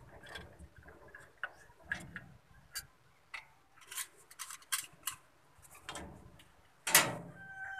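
Irregular small clicks and snips of pliers stripping and cutting electrical wire, with one louder knock about seven seconds in.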